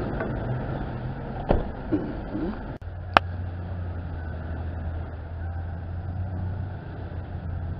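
A WWII-era military car's engine pulling away down a dirt track and fading, then a steady low engine hum. Two sharp clicks come about a second and a half and three seconds in.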